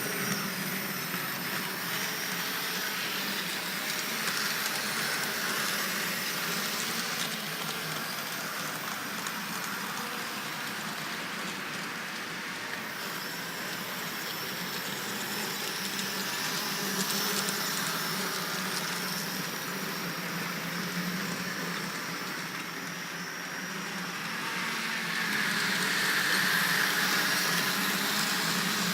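H0-scale model trams running on a layout track: a steady electric-motor hum and the hiss of small wheels on rails, growing louder a few times as a tram passes close, most of all near the end.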